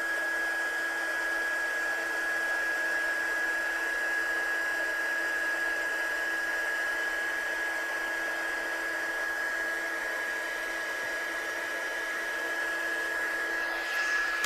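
Handheld heat embossing gun blowing hot air steadily, with a high whine and a fan hiss, melting gold embossing powder on a stamped card.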